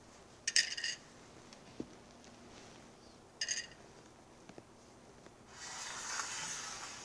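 Thin, glassy peanut brittle shards clicking and crackling briefly as they are pushed into buttercream, twice, about three seconds apart. Near the end comes a longer soft scraping rustle.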